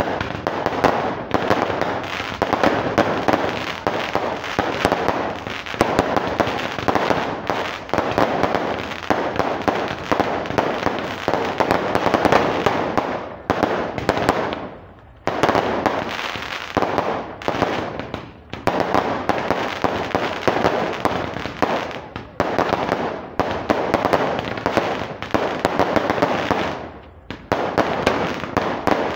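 Aerial fireworks bursting and crackling in a rapid, nearly continuous barrage, broken by a few short lulls.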